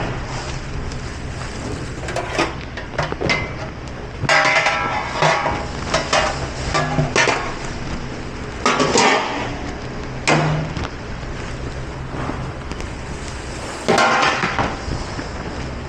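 Dishes, pots and utensils clattering and knocking together at irregular moments over a steady low machine hum, typical of a commercial kitchen dish pit.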